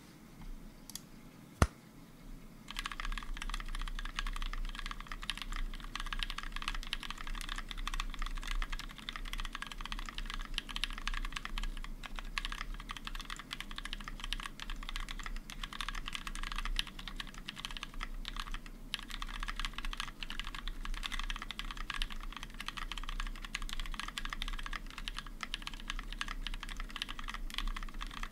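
Mechanical keyboard typing: a Brutal60 with NovelKeys Cream linear switches, lubed with Krytox and fitted with switch films, on an FR4 plate with JTK keycaps. One sharp click about a second and a half in, then steady continuous typing from nearly three seconds in.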